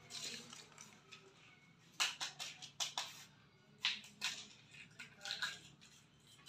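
Short crinkling and clicking handling sounds as hands work something small over a steel bowl. A cluster comes about two to three seconds in, with a few more around four and five seconds, against a quiet room.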